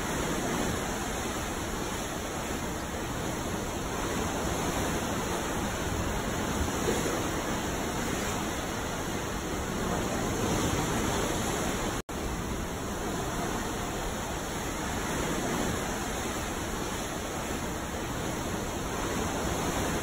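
Ocean waves: a steady wash of open sea that swells and eases gently every few seconds, broken by a split-second gap about twelve seconds in.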